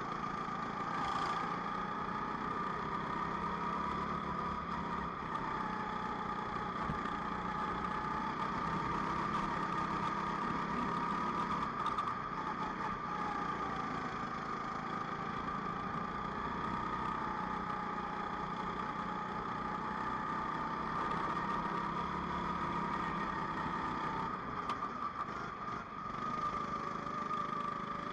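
Rental go-kart engine running at racing speed, heard from an onboard camera on the kart. Its pitch rises and falls repeatedly as the kart brakes for corners and accelerates out of them.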